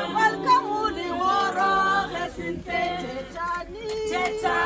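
A group of voices singing together in several parts at once, with no instruments showing.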